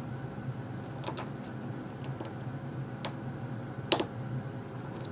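A lock pick working the pin stack of an Abus padlock core under tension, giving scattered small clicks and crunching as it lifts the pins. The crunching is the sign of serrated pins. The loudest click comes about four seconds in, over a faint steady low hum.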